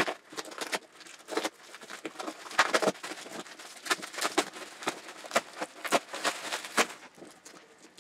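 Bubble wrap and plastic packaging crinkling and rustling in hands, with irregular crackles and scrapes against the cardboard box as the wrapped chainsaw bar is pulled out.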